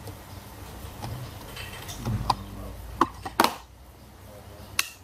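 Sharp plastic clicks and knocks as the bottom cover of an Acer Aspire One netbook is fitted and pressed back into place: single clicks about two, three and three and a half seconds in, another near the end, over a low hum.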